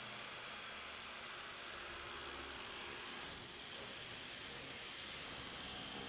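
An old circular saw running as it cuts through 2-inch pink extruded polystyrene foam board: a steady high whine over an even hiss. About three and a half seconds in, the level dips briefly and the whine shifts a little.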